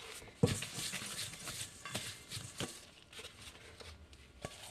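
Hands patting and turning a soft ball of potato yeast dough on a floured wooden board: a few soft thumps, the first about half a second in, among light rustling handling noise.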